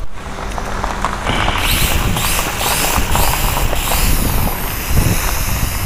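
Wind buffeting the microphone with a low rumble. From about one and a half to four seconds in it is joined by the high-pitched whine of a small V929 RC quadcopter's motors, shifting in pitch as the craft is flown.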